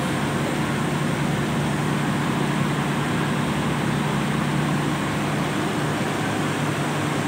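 Intercity coach's diesel engine idling close by, a steady hum that does not change.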